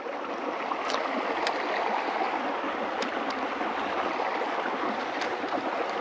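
Creek water running with a steady, even rush, with a few faint clicks over it.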